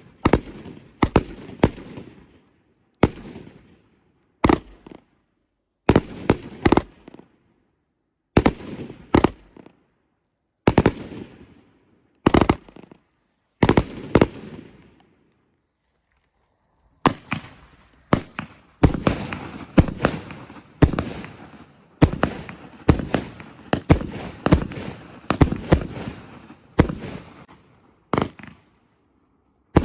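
Zom Bum 'The Wolf of Wall Street' 51-shot 30 mm salute cake firing: a string of sharp, loud bangs, each with a ringing echo tail. They come irregularly at first, stop for about two seconds halfway, then come faster.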